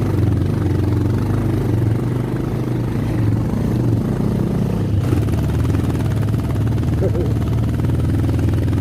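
Motorcycle engine running steadily at low speed, its note shifting slightly about five seconds in.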